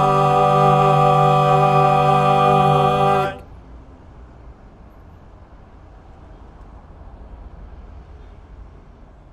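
A capella voices holding the song's final note as a steady chord, which cuts off abruptly about three seconds in. After that only a faint low background noise remains.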